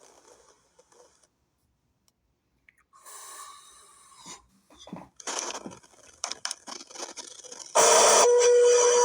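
New York City Subway train sounds: scattered knocks and rattles, then about eight seconds in a sudden loud steady rush of train noise with a steady tone over it.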